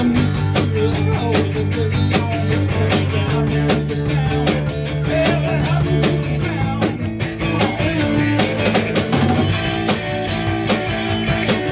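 Rock band playing a song with electric guitars, bass guitar and a drum kit keeping a steady beat.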